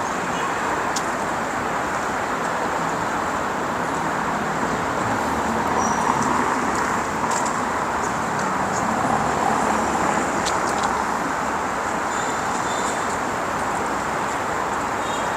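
Steady outdoor city ambience: an even rushing noise with a few faint clicks and short high chirps scattered through it.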